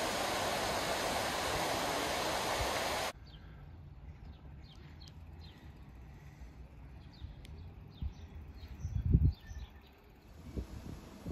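Water rushing over a river weir, a steady loud rush that cuts off suddenly about three seconds in. A quieter open-air scene follows, with small birds chirping and a few low thumps of wind on the microphone, the loudest a little before the end.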